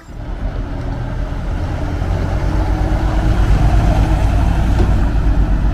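Bus engine running with a low, rapidly pulsing rumble that starts suddenly and grows louder over the first few seconds.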